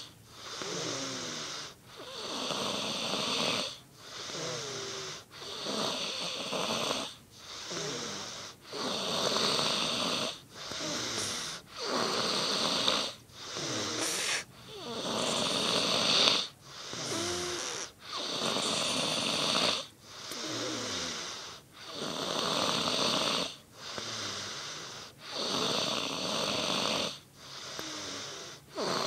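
A person snoring in a steady rhythm: a run of rasping, wheezy breaths, each a second or two long with a short pause between, about fifteen in the span.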